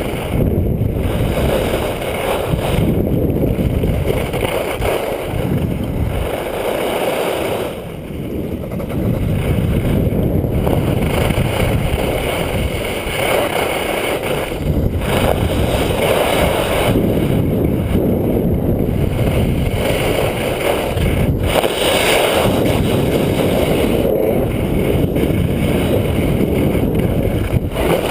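Wind rushing over the camera's microphone during a fast ski descent, mixed with skis sliding on groomed snow. The loud rush swells and eases every few seconds.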